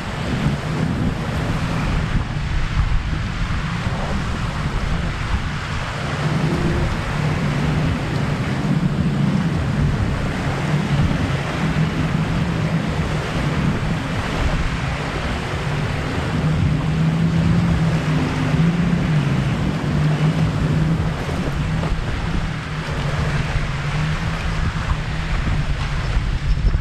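Wind buffeting the microphone over small waves lapping the shore, with a low droning hum underneath that is strongest through the middle.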